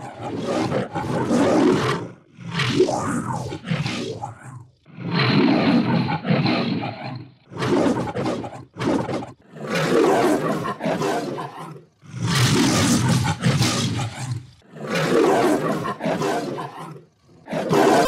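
A lion's roar as an edited sound effect, played again and again in digitally altered versions, the first one reversed. There are about eight roars one after another, with short gaps between them.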